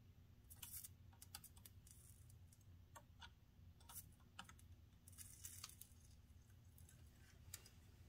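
Near silence with faint, irregular crackles and ticks over a low steady hum: a soldering iron melting solder into a fluxed joint on a circuit board, the rosin flux spitting as it heats.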